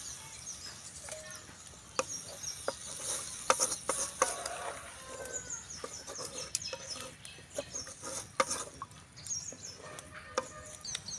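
Water poured from a steel tumbler into a large aluminium pot of tamarind gravy, then a wooden spoon stirring it, knocking sharply and irregularly against the pot's sides. Bird calls sound in the background.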